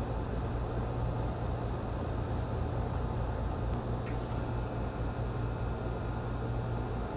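Outdoor HVAC condensing unit running steadily: a constant low compressor hum under the rushing air of the condenser fan.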